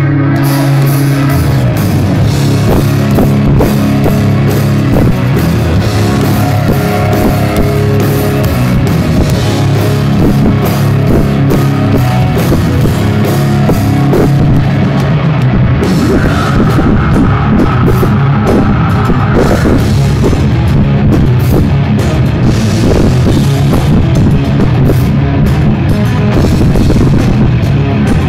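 Live metal band playing loud and continuous, with distorted electric guitars, keyboards and a drum kit on a steady beat. A higher held melodic line stands out for a few seconds past the middle.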